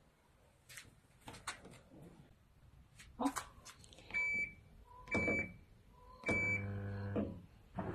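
Washing machine control panel beeping three times, about a second apart, as its buttons are pressed, preceded by a few light clicks of handling; after the third beep the machine starts with a steady hum.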